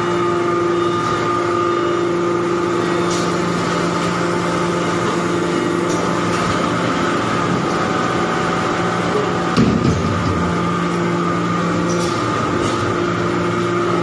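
Hydraulic metal-chip briquetting press running: a steady machine hum with several held tones, likely from its hydraulic pump unit. A brief louder swell comes about nine and a half seconds in, and one of the tones drops out briefly around twelve seconds.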